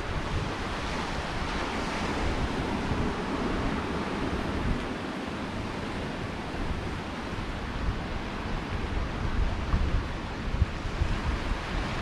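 Sea surf washing steadily against a rocky shore, with wind buffeting the microphone in low rumbling gusts that come more often near the end.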